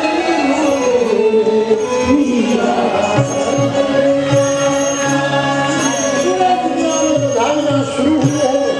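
Devotional singing: a solo voice sings a Ram bhajan in a wavering melodic line over steady, held instrumental tones, heard through the loudspeaker system of a large tent.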